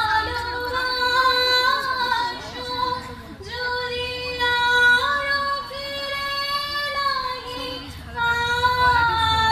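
Women's voices singing a slow song, holding long, high notes.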